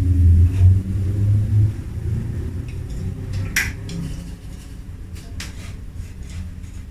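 A low rumble that fades after the first couple of seconds, with a few sharp clicks and clinks of kitchen utensils and dishes, the loudest about halfway through.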